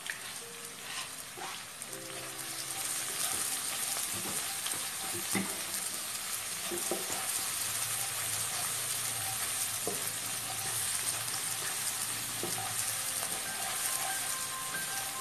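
Sliced chillies, shallots and garlic sizzling in hot oil in a nonstick wok, stirred with a spatula that clicks and scrapes against the pan. The sizzle grows louder about two to three seconds in and then holds steady.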